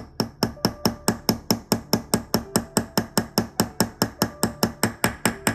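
Rapid, even light hammer taps, about five a second, driving the roller table onto a new balance staff of a pocket watch.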